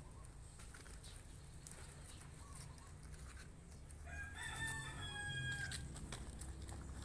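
A rooster crows once, a single drawn-out call of about a second and a half starting about four seconds in. Faint light knocks and rustles of split banana-trunk sheaths being stacked run underneath.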